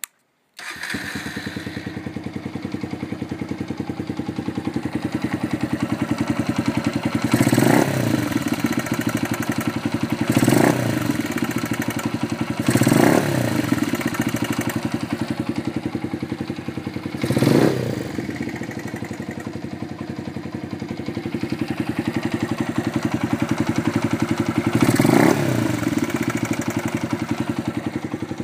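Motorcycle engine, a 125 cc unit in a Honda FTR223, starting up cold and idling with a rapid, even beat, blipped up in revs five times. This is the abnormal noise the owner hears only while the engine is cold.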